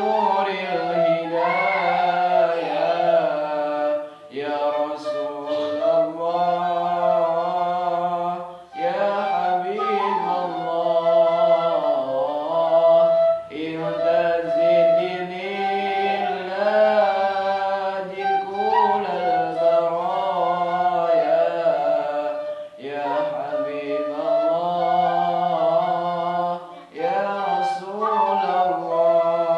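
Sholawat sung in long melodic phrases with gliding, ornamented pitch, each phrase breaking off after a few seconds for a breath.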